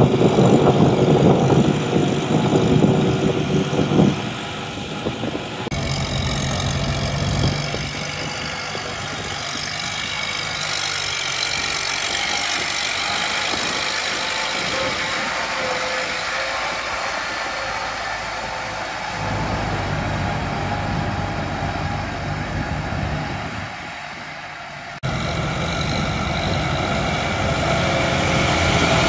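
Diesel tractor engines running steadily under load while pulling disc plows through wet paddy mud. The engine note is heaviest near the start and changes abruptly twice.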